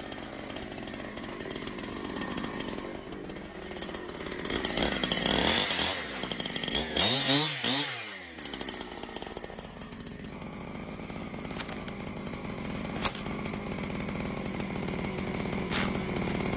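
Chainsaw running, revved up hard twice in the middle with a quick rise and fall in pitch, then running on more steadily.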